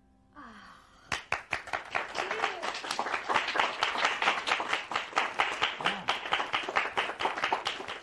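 A small audience clapping. The applause starts about a second in, grows louder, and has a few cheering voices over it.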